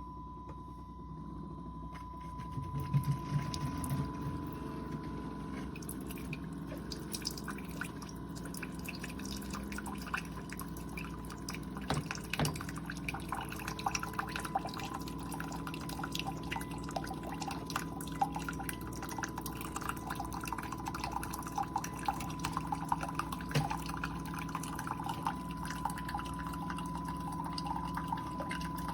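Keurig K-Supreme Plus single-serve pod coffee maker brewing: its pump runs with a thin steady whine while coffee streams and spatters into the cup.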